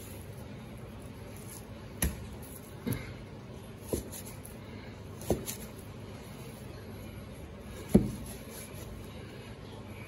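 Cleaver chopping raw beef into cubes on a plastic cutting board: five separate, unevenly spaced chops, the loudest about eight seconds in.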